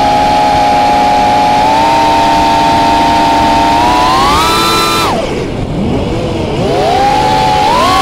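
FPV quadcopter's electric motors whining steadily. The pitch rises about four seconds in, then drops sharply as the throttle is cut. The motors spool back up at differing pitches and climb again near the end.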